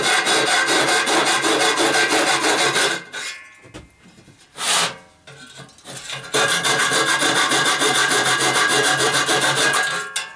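A handheld cutting tool cutting a hollow-projector opening out of an R2-D2 dome shell, a loud rasping run of rapid even strokes. It stops about three seconds in, gives a short burst, then runs again for most of the second half.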